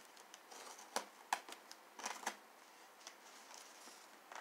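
Faint scratching and light taps of fingers on a cardboard shipping box, with a few sharp clicks about one and two seconds in.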